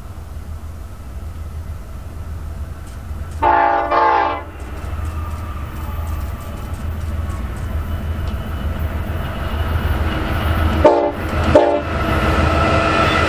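BNSF eastbound intermodal train led by a four-unit lashup of GE diesel locomotives (BNSF 8156, an ES44C4, in the lead) approaching with its diesel engines running, the rumble growing louder as it nears. The lead unit's air horn sounds one blast of about a second, then two short blasts about a second apart near the end.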